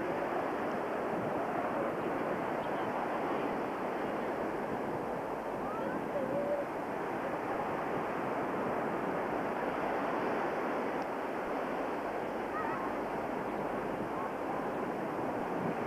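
Steady wash of sea surf and wind on the camcorder microphone.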